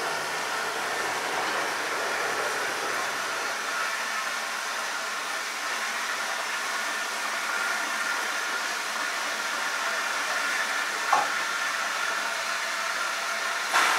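Steady hiss of steam from the Peppercorn A1 Pacific steam locomotive 60163 Tornado as it backs its tender onto the coaches, with a small click about eleven seconds in and a sharp knock near the end as the tender's buffers meet the coach's.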